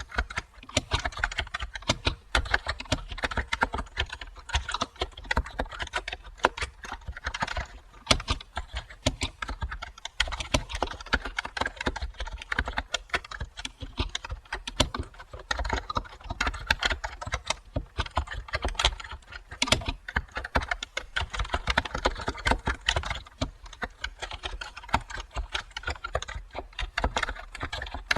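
Computer keyboard typing: a dense, irregular run of key clicks with brief pauses between bursts.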